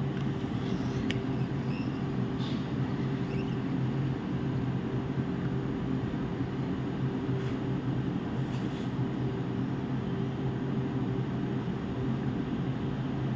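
Hot air rework gun running steadily, its blower giving a continuous hum with a hiss of air, while it heats the solder of a shorted inductor coil to lift it off the board.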